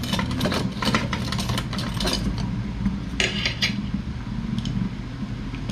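Dishes and utensils clinking and knocking in scattered, irregular strikes, with a quick cluster about three seconds in, over a steady low hum.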